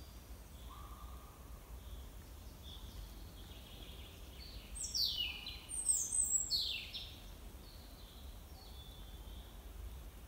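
Songbirds singing in a pine forest: faint, repeated high calls throughout, and about halfway through two louder song phrases, each tumbling down in pitch, over a steady low rumble.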